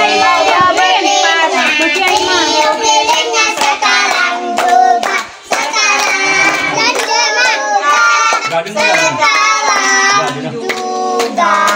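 Group of children and women singing an Indonesian birthday song together, with hands clapping along.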